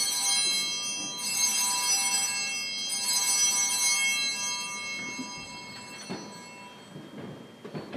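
Altar bells ringing for the elevation at the consecration, with a bright, many-toned high ring that is struck again about a second in and about three seconds in, then fades away by the second half. A few faint knocks follow near the end.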